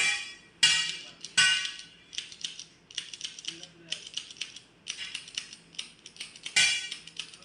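Hijama lancing pen clicking again and again as it is pressed onto the skin and fired, pricking the cupping site: sharp metallic clicks, several a second, with louder ones about half a second in, about a second and a half in, and near the end.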